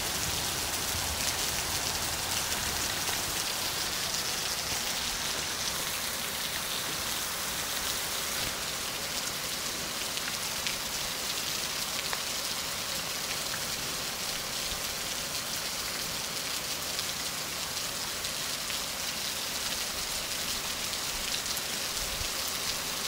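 Heavy rain falling steadily: an even hiss of downpour with no thunder.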